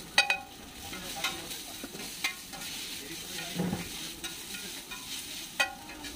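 Metal spatula clacking and scraping on a flat griddle as chopped chicken filling is pushed and tossed, over the steady sizzle of food frying. The sharp, ringing clacks come irregularly, the loudest just after the start and another near the end.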